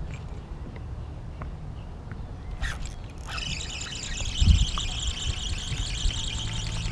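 A spinning reel buzzing steadily from about three seconds in, as a hooked bass pulls against the rod, after a couple of sharp clicks at the hookset. Wind rumbles on the microphone underneath.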